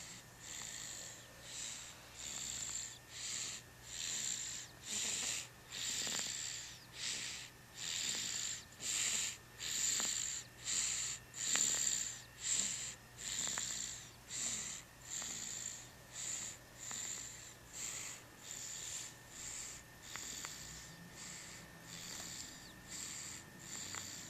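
Snoring through a nose blocked by a cold: short, hissy, wheezy breaths in quick regular succession, about three every two seconds, loudest in the middle.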